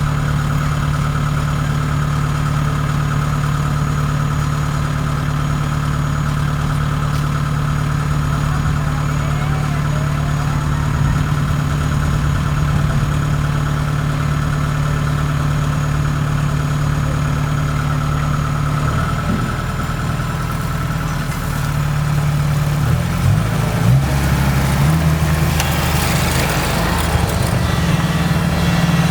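Kubota DC70 rice combine harvester's diesel engine running steadily; in the last ten seconds its note shifts up and down several times, and a broad rushing hiss rises near the end.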